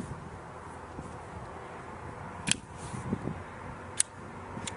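Sharp metallic clicks from a snub-nosed revolver being handled during a reload drill, three in all: one about halfway through and two more close together near the end, over a faint steady hiss.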